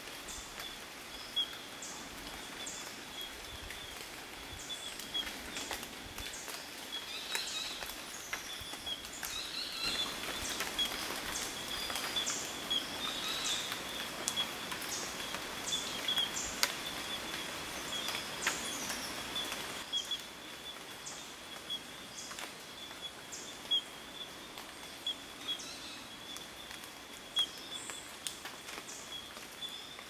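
Cloud-forest ambience in fog: a steady high trill runs under short high chirps that repeat about once a second, over a soft hiss that swells in the middle. A few sharp clicks stand out.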